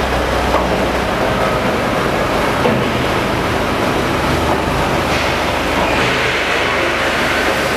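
Construction site train running through a segment-lined tunnel tube: a loud, steady rumbling noise with a low hum, and a higher whine joining about five seconds in.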